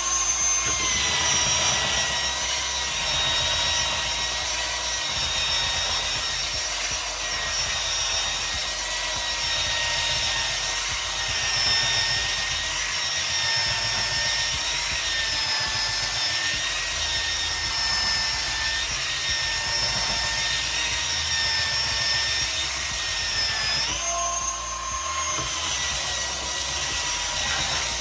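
Ryobi One+ 18V cordless belt sander running against wood: a steady high motor whine over the rasp of the abrasive belt on the timber. The whine dips slightly in pitch while the sander is pressed into the work, and rises briefly near the end as the load comes off.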